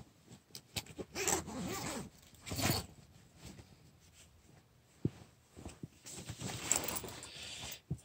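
Canvas bag being handled: a zipper pulled and the fabric rustling, in several short bursts.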